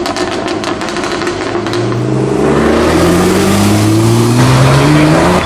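Jaguar F-Type R's supercharged V8 exhaust crackling and popping, then the engine pulling hard under acceleration, its note climbing steadily for about three seconds before cutting off suddenly.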